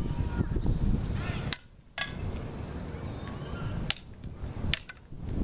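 Wind rumbling on the microphone, with a few sharp knocks. Twice the sound drops out briefly, each drop starting and ending on a sharp knock.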